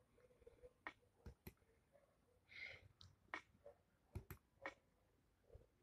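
Near silence with a few faint, sharp clicks scattered throughout and a soft breath a little past halfway.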